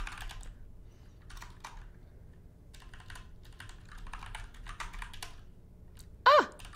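Computer keyboard typing: scattered keystrokes as a password and a vim search are entered. Near the end comes a short, loud falling tone, the Mac's alert sound as vim reports the searched pattern not found.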